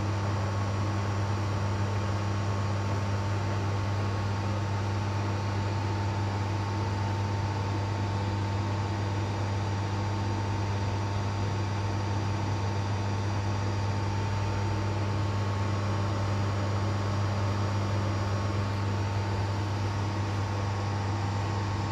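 Metal lathe running steadily: a constant low hum with a few steady higher tones over an even hiss.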